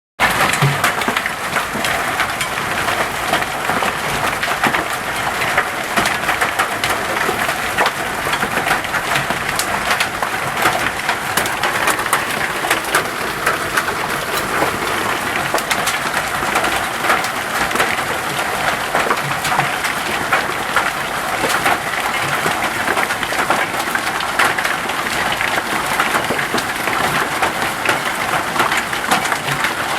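Hail falling hard, a dense steady patter of hailstones striking hard surfaces, with many sharp individual hits through the rushing noise.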